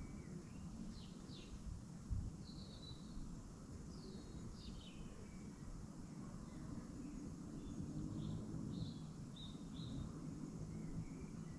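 Faint bird chirps and short call notes, scattered irregularly, over a steady low background rumble.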